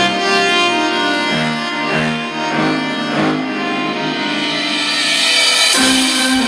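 Background instrumental music with long held melodic notes, swelling near the end into a new, lower sustained note.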